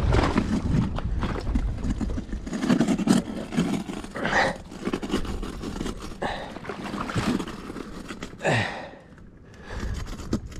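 Footsteps crunching irregularly over loose rocks, gravel and crusted snow at the water's edge, with a brief sound sliding down in pitch about eight and a half seconds in.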